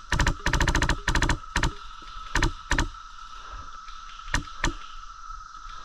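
Airsoft guns firing: a couple of single shots, then a fast full-auto burst of about ten shots, then scattered single shots, with two more about four seconds in.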